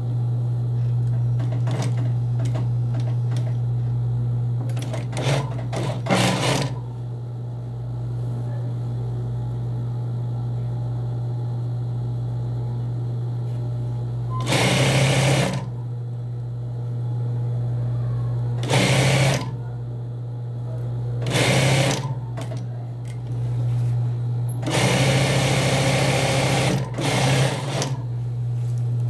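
Industrial lockstitch sewing machine stitching a zipper into a trouser fly. Its motor hums steadily throughout, with a few short clicks early on, then four short runs of stitching in the second half, the last about two and a half seconds long.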